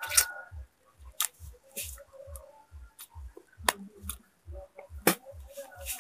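Mouth sounds of a man eating grilled fish by hand: sharp lip smacks and sucking clicks, one every second or so. Under them runs a steady low thudding pulse, about two and a half beats a second.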